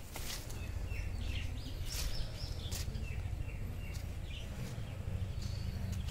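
Outdoor ambience of birds chirping in short, scattered calls over a steady low rumble on the microphone.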